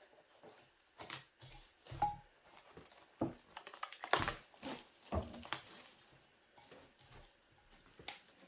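Irregular light knocks, taps and rustles of hands working in a kitchen, with a brief clink about two seconds in.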